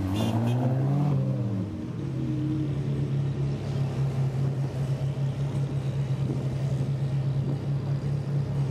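Supercar engine blipped once, its pitch rising and falling over the first two seconds, then settling to a steady, throbbing idle.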